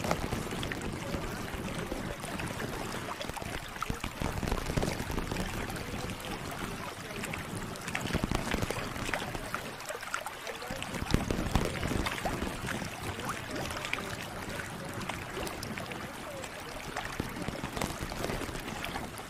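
ASMR sound track: a steady rushing, water-like noise, close to pouring or flowing water, dotted with many small crackles and clicks.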